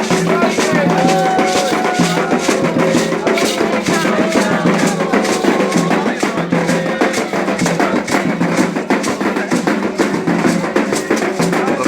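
Candomblé ritual music: hand drums and rattles playing a fast, steady beat, with voices singing over them.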